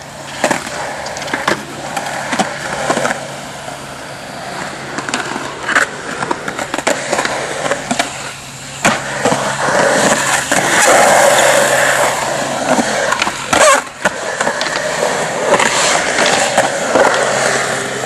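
Skateboard wheels rolling over concrete, louder for a stretch in the middle, with repeated sharp clacks of the board hitting the ground and a hard impact about two-thirds of the way through.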